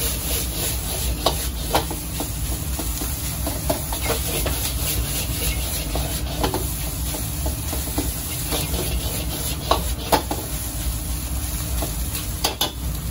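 Metal ladle scraping and clinking against a wok as fried rice is stir-fried and tossed, the rice sizzling in the hot pan. Irregular sharp clinks come over a steady low rush.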